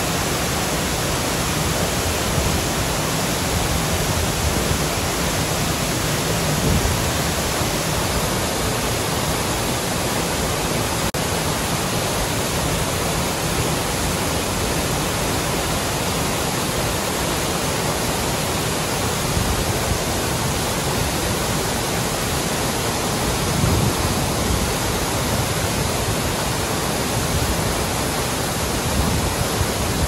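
Waterfall pouring: a loud, steady rush of falling water.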